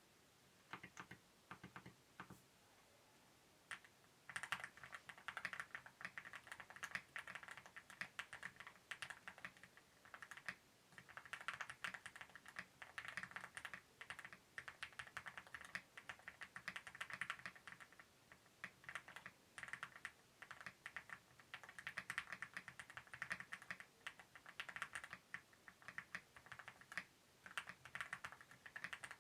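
Mammoth75 custom mechanical keyboard with a PC plate, stock Aqua King switches and KAT Iron keycaps being typed on: a few single keystrokes, a short pause, then fast continuous typing from about four seconds in. The typing sounds like bubbles.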